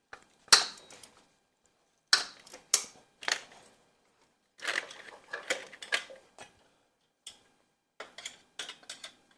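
Metal tools and engine parts clanking during an engine teardown: a run of irregular sharp clicks and knocks, the loudest about half a second in, with short gaps between.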